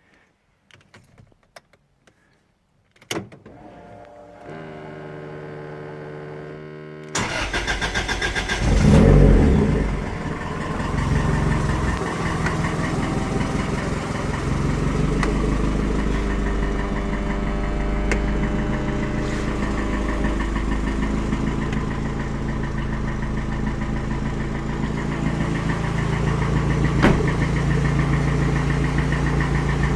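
Toyota 3S-GE inline-four engine being started: a few clicks and a low hum as the ignition is switched on, then a second or so of starter cranking. It catches about nine seconds in with a brief rise in revs, then settles into a steady idle. There is a single sharp click near the end.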